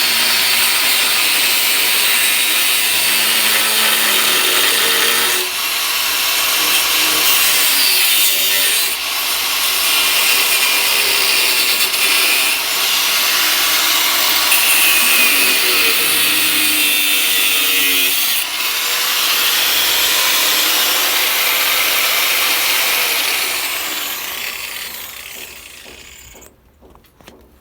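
A handheld power cutter cutting through old galvanized iron pipe, running steadily under load with its pitch shifting as it bites, then winding down and stopping near the end.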